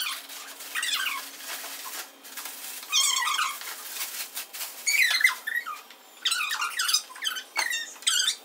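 High-pitched, squeaky voice sounds in short bursts that bend up and down in pitch, about half a dozen times.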